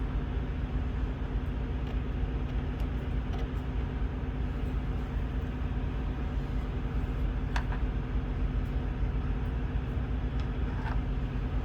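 Steady low hum of a running engine, with two faint clicks, one past the middle and one near the end.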